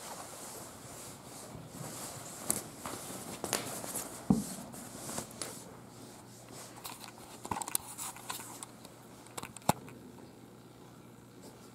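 Fabric rustling with scattered light clicks and knocks from handling, and one louder low thump about four seconds in.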